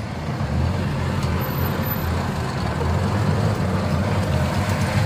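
Motor vehicle engine running with a steady low rumble, with a rough noisy hiss above it.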